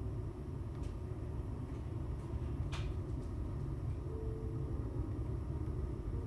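Kiln-dried logs burning hard in a closed wood-burning stove: a steady low rumble from the fire, with a few sharp crackles, the loudest a little under three seconds in.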